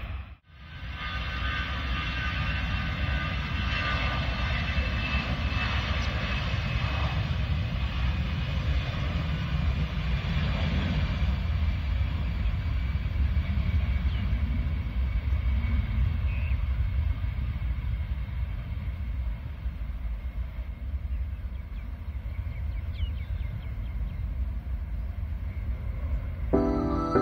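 Jet engines of an Air India Airbus A319 at takeoff power, heard from across the airfield: a steady deep rumble with a high whine over the first ten seconds or so, as the airliner rolls down the runway and climbs away. The sound cuts out briefly right at the start.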